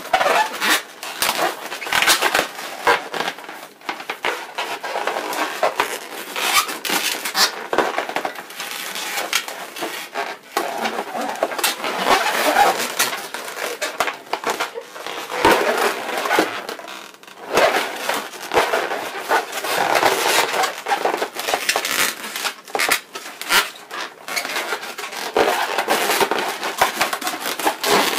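Latex twisting balloons rubbing and squeaking against each other and against the hands as they are twisted and pressed together, in quick irregular scrapes and squeaks.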